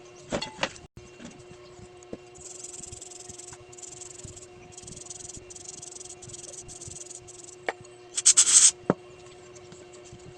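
Metal electrical contacts being sanded by hand with sandpaper: a run of short scraping strokes, then one louder, brief scrape near the end. The contacts are being cleaned of old, sticky grime.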